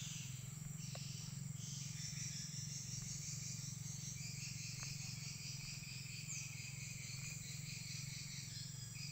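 Quiet steady background noise: a low hum with a faint, even high-pitched hiss or chirring above it.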